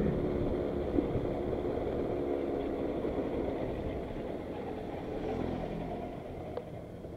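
Small 50cc two-stroke automatic scooter engine running while riding, its sound easing off and growing gradually quieter over the seconds.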